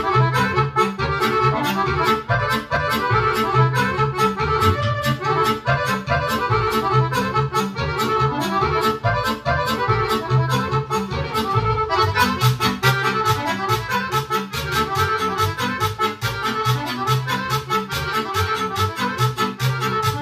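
Two piano accordions and a Yamaha Motif XF6 synthesizer keyboard playing a fast Serbian kolo dance tune together, with a quick, even beat. The sound grows brighter about twelve seconds in.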